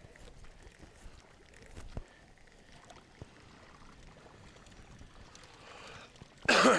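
Faint water sounds around a small fishing boat with a few light knocks, then a short, loud burst of noise near the end.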